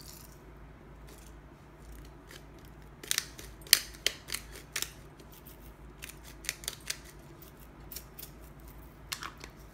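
Hand-held salt grinder being twisted, its grinding head crunching coarse pink salt crystals in irregular runs of sharp clicks. The grinding starts about three seconds in and goes on in short spurts.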